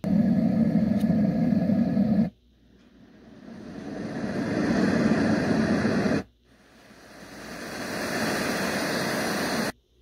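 Letsfit sleep sound machine playing its built-in soothing noise sounds, skipped from track to track. Three different steady noise sounds play in turn, each cut off suddenly: the first is deep and comes in loud at once, and the next two each fade in slowly over several seconds and are brighter, with more hiss.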